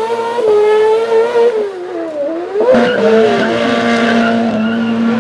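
Rally car engine running at high revs, dropping off about two seconds in, then a sharp crack and the revs picking up again and holding high.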